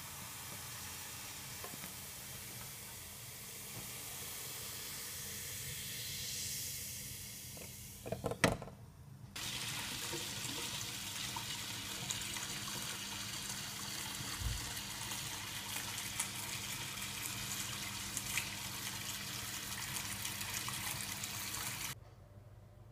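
Cola poured from a plastic bottle into a pewter teapot, the pouring rising in pitch as the pot fills. A clatter comes about eight seconds in, then a steady fine crackling fizz from the carbonated cola in the pot, which cuts off just before the end.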